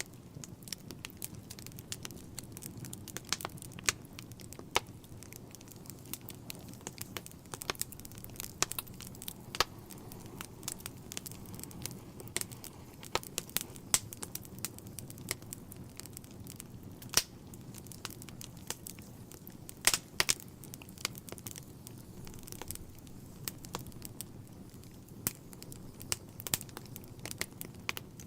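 Wood fire burning in a fireplace: irregular sharp crackles and pops over a steady low background of burning logs, with a few louder snaps about two-thirds of the way through.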